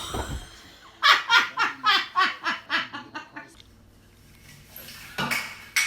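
A person laughing in a quick run of short ha's, about four a second, starting about a second in and lasting some two and a half seconds.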